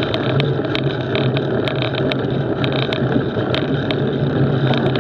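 Knobbly bike tyre rolling over a gravel track: a steady humming drone over rumble from the ground, with frequent small clicks and rattles from loose stones and the bike.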